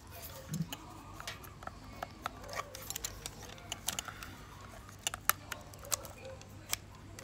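Handling noise from a Miranda Automex III film camera's metal body being turned over in the hands: scattered, irregular light clicks and taps.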